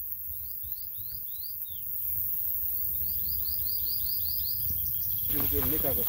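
A bird chirping in two quick runs of short high notes, about four and then about eight, over a low rumble. A person's voice comes in near the end.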